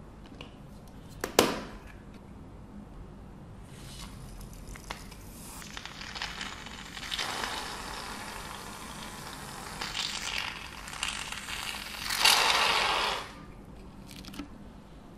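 Aerosol foam can spraying: hissing, crackling spurts of foam from a few seconds in, with the longest and loudest spray, about a second long, near the end. A sharp click about a second in.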